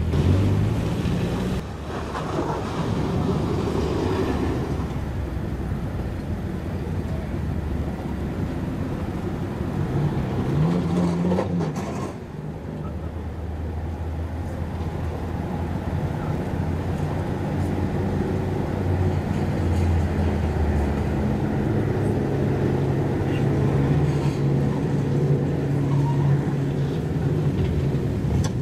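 Engines and exhausts of lowered cars running at low speed as they crawl past. There is a short rising rev about ten seconds in, and a steady low drone through the second half.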